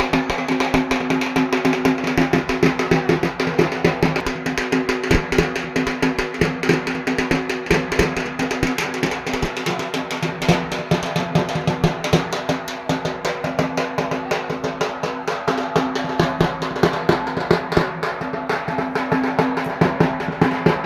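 Fast, dense drumming over a steady held drone: devotional puja music played through a PA loudspeaker system.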